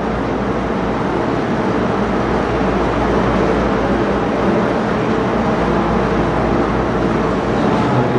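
Steady machine hum and hiss: several held low tones over an even noise bed, unchanging throughout, like a fan or air-conditioning unit picked up by the microphone.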